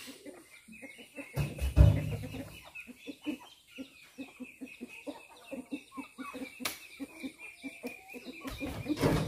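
Chickens clucking, with two heavy thuds of oil palm fruit bunches landing in the steel bed of a dump truck, the louder about two seconds in and the other near the end.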